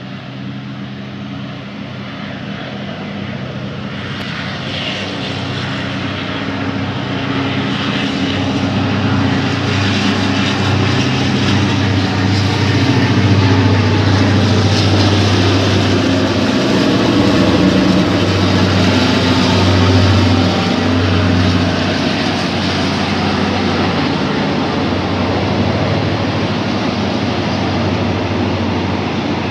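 Diesel locomotive engine drone, growing louder over the first dozen seconds as the train approaches, then running steadily as the train passes.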